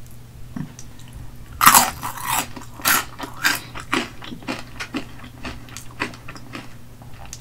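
A loud crunchy bite into Hot Cheetos, close to the microphone, about a second and a half in, followed by crunchy chewing that fades over the next few seconds.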